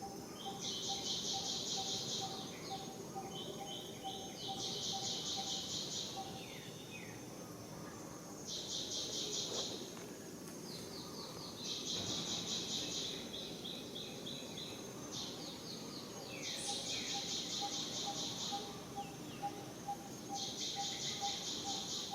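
Outdoor bird calls: a high, fast trill about two seconds long, repeated six times every few seconds, with a fainter, lower rapid pulsing call near the start and near the end.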